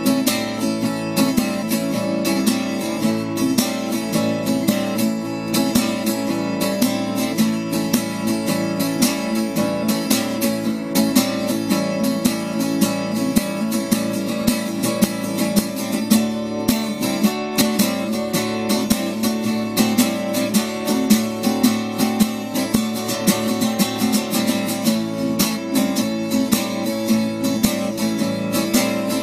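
Acoustic guitar strummed steadily in an instrumental passage of a folk-rock song, with no singing.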